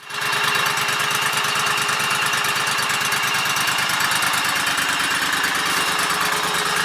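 John Deere 345 lawn tractor engine running steadily at an even speed, with a rapid, regular pulsing.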